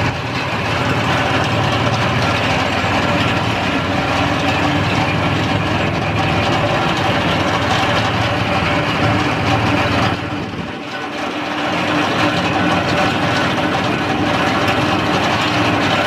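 Tractor pulling a 30-foot bi-fold roller/crimper through cereal rye: the engine runs steadily under load, mixed with the rattle of the rolling crimper. The sound dips a little about ten seconds in, then picks up again.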